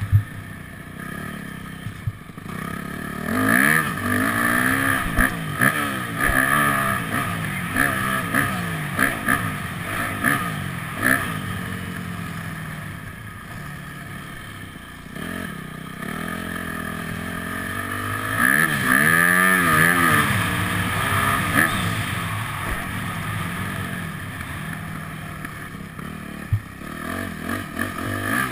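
Dirt bike engine revving up and down as the rider opens and closes the throttle, heard close up from a camera mounted on the bike, loudest about four seconds in and again around twenty seconds, quieter in between. Sharp knocks and clicks come through now and then.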